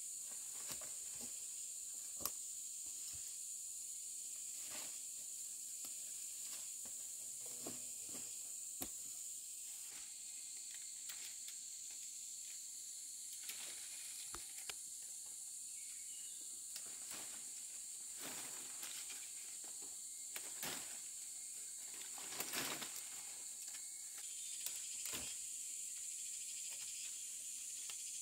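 Steady high-pitched hiss with scattered light clicks and knocks, a brief cluster of them about two-thirds of the way through.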